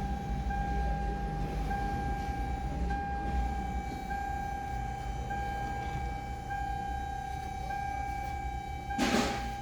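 An electronic warning tone sounds continuously, pulsing with a short break about every second, over a low rumble. A short rushing noise comes near the end.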